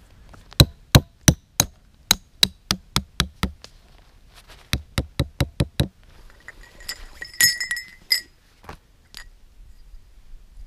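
A hooked metal tent stake being driven into the ground through a canvas grommet with the back of a hatchet: a run of sharp knocks, about three a second, then a second, quicker run. About seven seconds in come a few metallic clinks with a brief ringing tone, then two light clicks.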